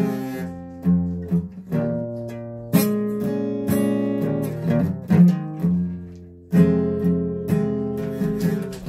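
A guitar being strummed and picked: a run of chords, each struck sharply and left to ring out, with a brief lull and then a strong chord about two-thirds of the way through.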